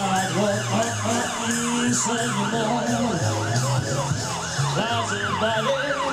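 Emergency-vehicle siren on a fast yelp, its pitch sweeping up and down about four times a second without a break.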